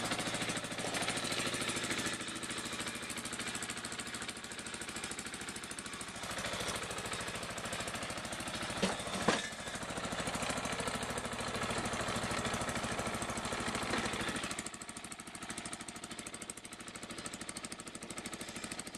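Exmark walk-behind mower's small gas engine running steadily shortly after a cold start on choke. Two sharp clicks come about nine seconds in, and the engine sound gets quieter from about fifteen seconds in.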